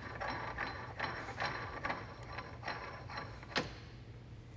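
Stemco ProTorque spindle nut being spun on by hand along the axle spindle threads: a run of soft, uneven metallic clicks and scrapes, roughly two to three a second, with one sharper click about three and a half seconds in.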